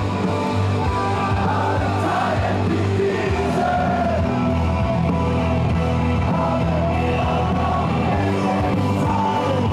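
Loud party music playing without a break, with people singing along and yelling over it.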